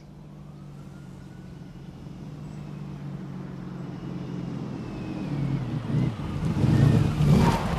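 City street traffic, with a car approaching and getting louder until it pulls up near the end.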